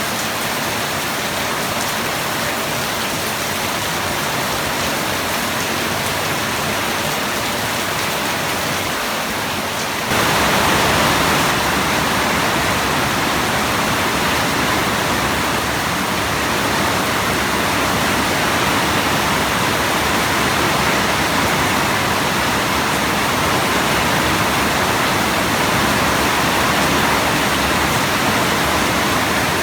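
Steady heavy rain hissing. About ten seconds in it suddenly becomes louder and brighter, then carries on steadily.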